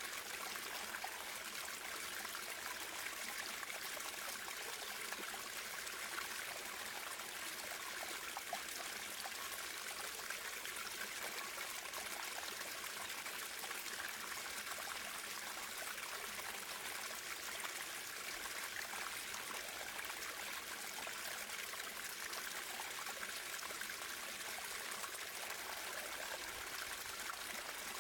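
Natural running water flowing steadily and trickling, an even rush with no pauses.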